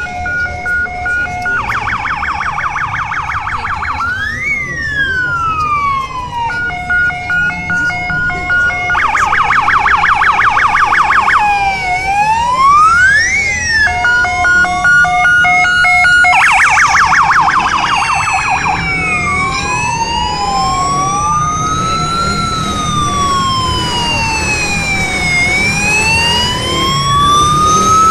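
Police sirens cycling through their modes: a pulsed tone, a fast yelp and a slow rising-and-falling wail. In the second half the siren settles into a long slow wail, over a growing low rumble of motorcycle engines.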